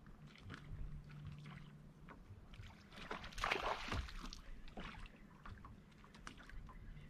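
Water lapping at a bass boat's hull under a low, steady hum that stops just under two seconds in. Light scattered clicks, and a brief splashy rush of noise about three and a half seconds in.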